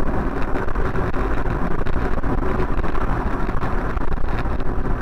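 Steady road and engine noise of a moving car, recorded by its dashcam from inside the cabin.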